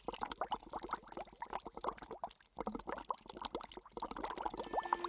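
Water pouring and trickling: an irregular run of small splashes and drips.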